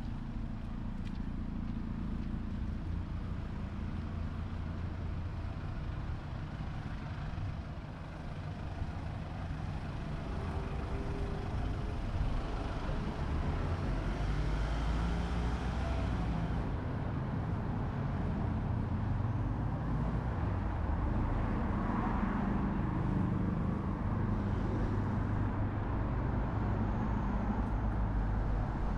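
Steady low rumble of road vehicle engine and tyre noise, with pitch bands shifting now and then as the engine changes speed; it gets a little louder after about eight seconds.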